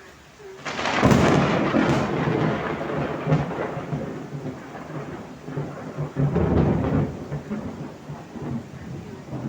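A loud thunderclap breaks about a second in and rumbles on over steady heavy rain. The rumble swells again about six seconds in before dying down.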